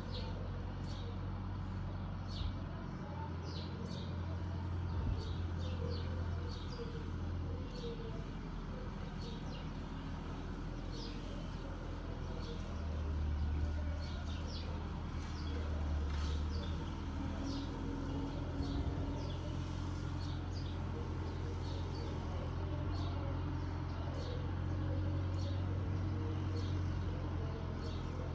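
Distant Fiat 766 DT tractor running with its O.S.M.A. flail mowing arm, a low steady drone that swells and eases a few times. Birds chirp in short, quick calls throughout.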